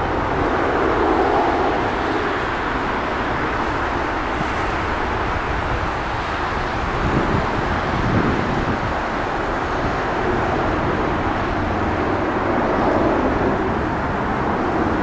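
Boeing 777-200 airliner on final approach, its twin jet engines giving a steady rumble, heard outdoors with no clear rise or change.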